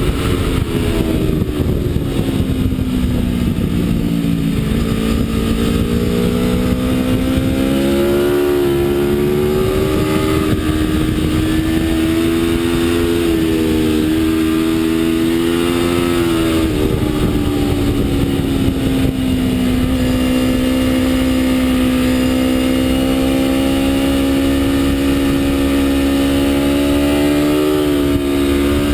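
Aprilia RSV4 V4 sportbike engine running hard on track, its note sliding down and back up several times and holding steady for long stretches.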